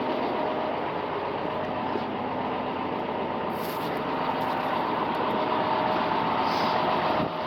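Farm machine's engine running steadily while it pushes a load back, with a faint steady whine over the engine noise.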